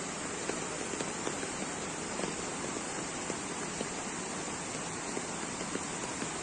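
Heavy storm rain falling: a steady hiss with scattered ticks of drops striking surfaces.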